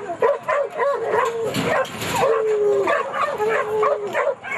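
Several hog-hunting dogs baying and yipping excitedly at a hog just turned loose, a drawn-out howling bay repeated every second or two over overlapping short yelps.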